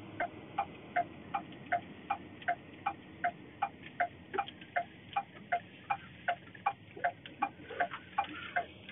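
Car turn signal clicking in a steady tick-tock, about two and a half clicks a second, over faint road noise inside the cabin.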